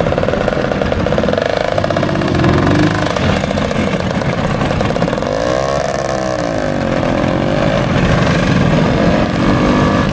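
Motor scooter engines running, with one revved up and back down around the middle.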